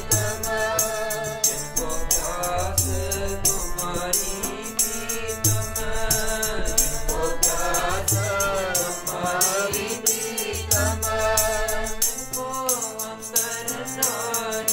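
Sikh keertan: voices singing a shabad over sustained harmonium tones and tabla, with a quick steady rhythm of sharp clicks about four a second.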